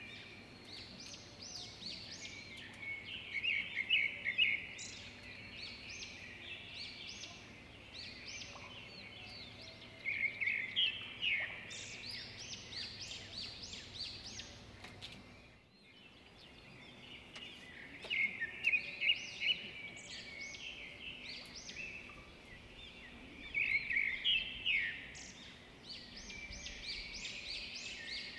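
Birds calling in bursts of rapid, high chirps and trills every few seconds over a faint steady background hum. The sound drops out briefly about halfway through.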